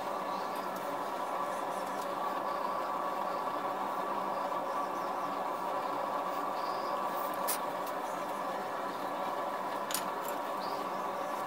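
Steady machine-like hum, with two sharp clicks about two and a half seconds apart in the second half.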